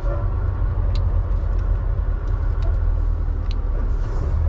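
Semi truck's diesel engine running steadily as heard inside the cab while the truck creeps along at low speed, a deep constant rumble, with a couple of light ticks.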